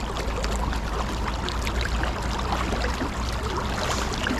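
River current rushing and splashing around a wading angler's legs and a landing net held in the water with a salmon in it, with many small splashes throughout.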